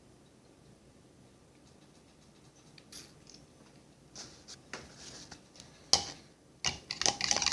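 A metal fork clicking and scraping against a cup, a few scattered taps at first, then fast steady stirring starting near the end as oil and food colouring are mixed.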